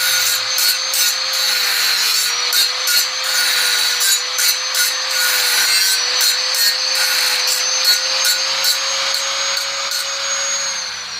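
Small power tool's motor running with a steady high whine while it rasps against metal in repeated strokes, about two or three a second. Near the end the motor spins down, its pitch falling.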